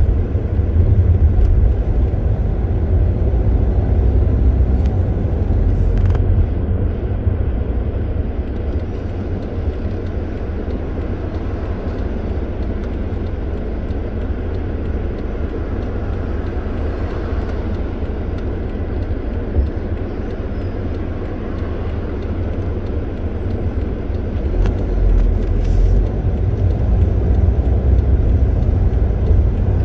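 Car driving along a road: a steady low rumble of engine and tyre noise, easing off through the middle and louder again near the end.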